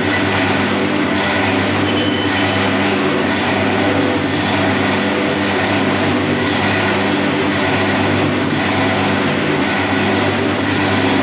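Gulkand mixing machine running steadily, its blades churning a trough of thick rose-petal paste: a loud, even machine hum with mechanical noise.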